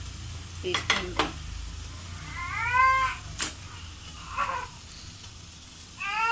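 A cat meowing three times: a rising-and-falling call about two and a half seconds in, a fainter one near the middle, and a longer wavering one near the end. A few light metal clinks from a steel steamer plate being handled come about a second in and again just after the first meow.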